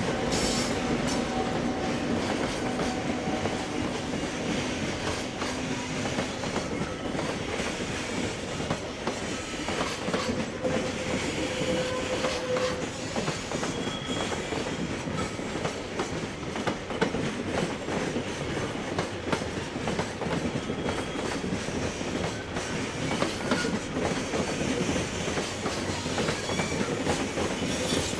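Freight train's wagons rolling past at speed, a steady rushing din with continuous clickety-clack of wheels over the rail joints.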